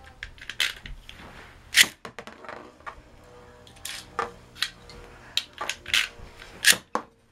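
A Beyblade spinning top clattering in a plastic stadium: scattered sharp clicks and knocks, the loudest about two seconds in, over a faint steady whir from the spinning top.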